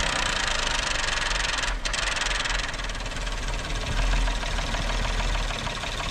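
Kia Opirus's 3.8-litre G6DA V6 running just after start-up with a very loud, dense chain rattle from the front of the engine. The timing chain is making noise it should not make.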